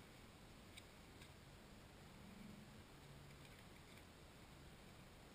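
Near silence: faint background hiss, with two faint ticks about a second in.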